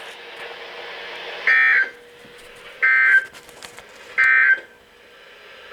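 NOAA Weather Radio EAS end-of-message signal, heard through a weather radio receiver: three short, harsh bursts of digital data tones about a second and a half apart over faint radio hiss. The signal marks the end of the broadcast alert message.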